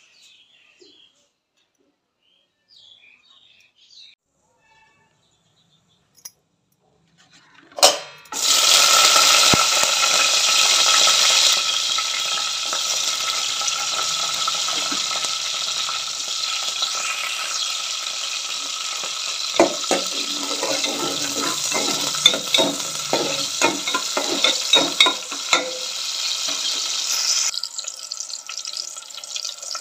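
Green chillies dropped into hot oil in an aluminium pot, starting about eight seconds in with a sudden loud sizzle that then runs on steadily as they fry, with scattered crackles and pops later.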